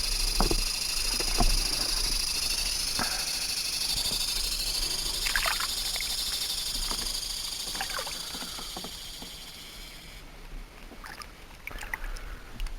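Water sloshing and scattered knocks around a small boat, under a steady high-pitched hiss that cuts off suddenly about ten seconds in.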